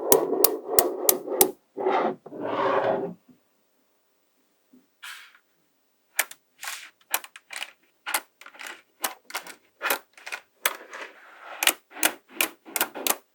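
Small magnetic balls clicking as they snap together, in a quick run of sharp clicks, then short rattles as they are handled. After a pause of about three seconds, irregular clicks and rattles carry on.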